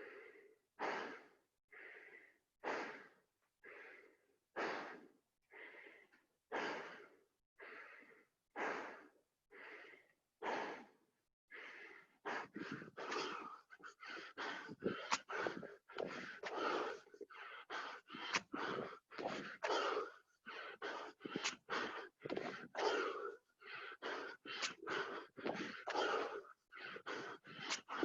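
A man breathing hard and audibly from the exertion of burpees, about one breath a second at first. From about halfway through the breathing turns faster and louder, roughly two breaths a second.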